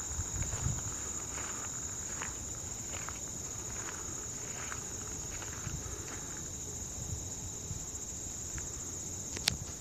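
Steady high-pitched chorus of insects in a late-summer meadow. There are low thumps in the first second and a single sharp click near the end.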